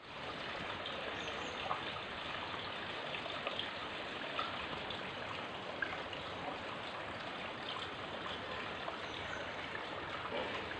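Water running into a garden fish pond from a small water feature: a steady rush of flowing water with occasional small splashes.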